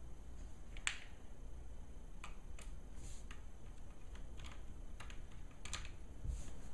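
Light, scattered clicks and ticks from a small screwdriver and screws as the screws holding a laptop screen bezel are driven back in, about eight irregular clicks with the sharpest about a second in.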